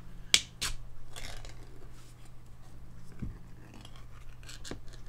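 Ring-pull lid of a sardine tin being opened: a sharp click as the tab lifts and breaks the seal, then the thin metal lid crinkling and tearing as it peels back, with scattered small clicks and a soft knock on the tin.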